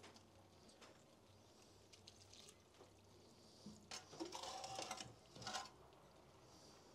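Mostly near silence, with faint splashing and scraping from about four to five and a half seconds in as sofrito is tipped from a perforated metal skimmer into a large aluminium pot of bean broth.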